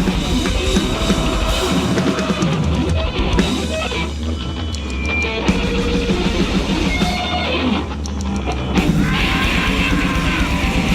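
Noisecore (grindnoise) recording: a dense, loud wall of distorted guitar noise over pounding drums, with several abrupt changes in texture.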